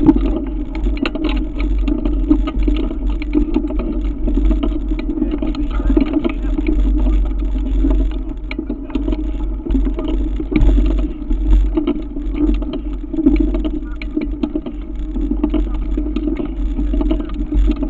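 Mountain bike riding over a gravel track, recorded by a camera mounted on the bike: tyres crunching on loose stones and frequent small rattles over a constant low rumble of wind and vibration on the microphone.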